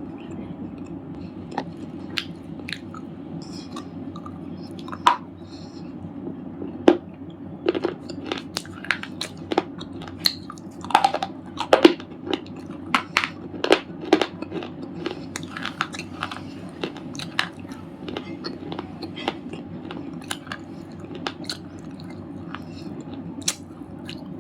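Red slate chips being bitten and chewed close to the microphone: sharp, irregular crunches that come thickest in the middle, over a steady low hum.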